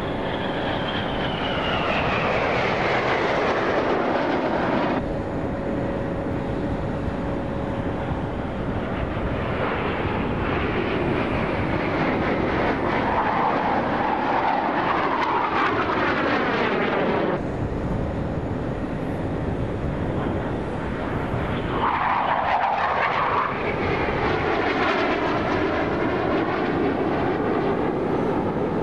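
BAE Hawk jet trainers' Adour turbofan engines as the aircraft fly past in formation, the jet whine sweeping down in pitch as each pass goes by. The sound changes abruptly about five seconds in and again past the halfway point.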